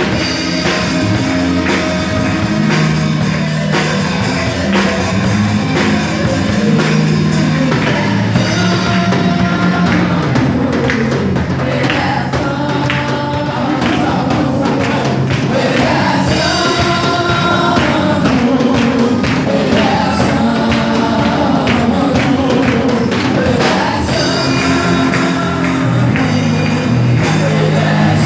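Portuguese-language gospel worship song with singing over a full band of drums, bass and guitar.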